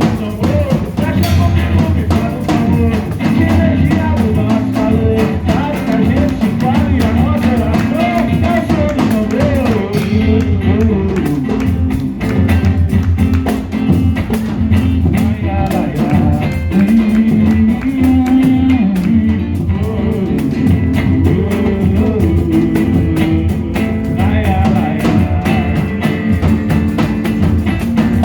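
A live pagode band playing: a singer over plucked strings and samba percussion, with a steady beat.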